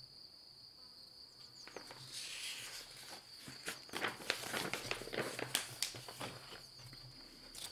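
Paper pages of a booklet turned by hand, rustling and crinkling in a run of sharp crackles from about two seconds in, loudest a little past the middle. A steady high insect trill runs underneath.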